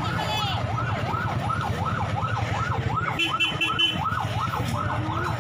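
An electronic siren wailing up and down rapidly, about three rises and falls a second, over a steady low hum, with a brief run of short high-pitched tones about three seconds in.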